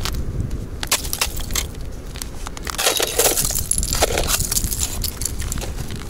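Irregular crunching and crackling of frozen snow and ice, with louder crunches about three and four seconds in.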